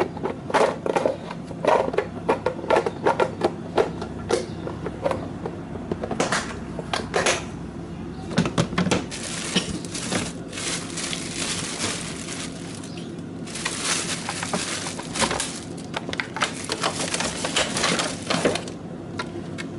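Food containers and plastic packaging being handled inside a fridge: a run of clicks and knocks for the first several seconds, then long stretches of crinkling plastic rustle.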